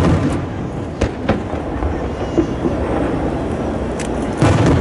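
Aerial firework shells bursting: a loud boom at the start, two sharp bangs about a second in, another at about four seconds and a big boom near the end, over a steady low rumble.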